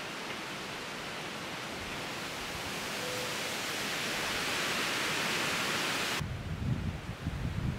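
Steady hiss of microphone noise with no distinct events, slowly growing louder, then cut off abruptly about six seconds in and replaced by a low, uneven rumble on the microphone.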